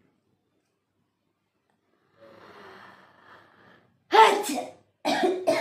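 A person sneezing twice, about a second apart, loud, after a couple of seconds of quiet catching breaths.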